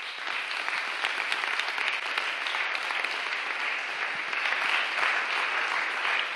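Audience applauding, starting abruptly and keeping up steadily.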